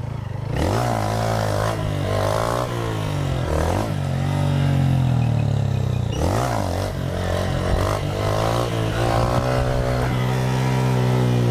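Motorcycle engines revving and passing, their pitch rising and falling repeatedly over a steady engine drone.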